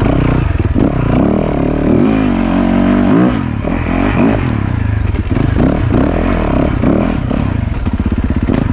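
Yamaha YZ450FX dirt bike's 450cc four-stroke single-cylinder engine revving up and down as the throttle is opened and rolled off several times, held in first gear rather than shifted.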